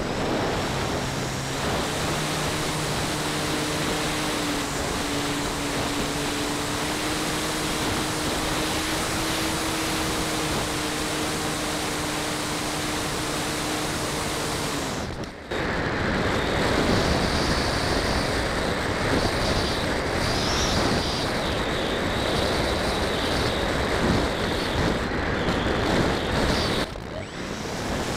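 Onboard sound of a radio-controlled model airplane in flight: its motor and propeller running with a steady hum under rushing wind on the camera. About halfway through the sound briefly dips, then returns rougher and louder with a high whine, and it dips briefly again near the end.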